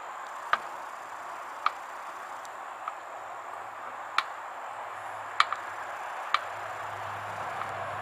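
Sharp, separate clicks, roughly one a second and unevenly spaced, from a screwdriver being turned on a stiff levelling screw, over a faint steady hiss.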